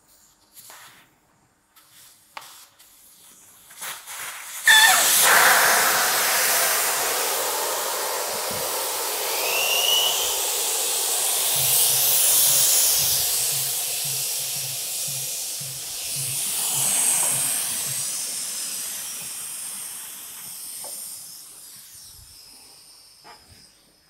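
Air hissing out of the valve of a Dunlop D402 rear motorcycle tire as it is deflated. It starts suddenly about five seconds in after a few light clicks, then fades slowly as the tire empties.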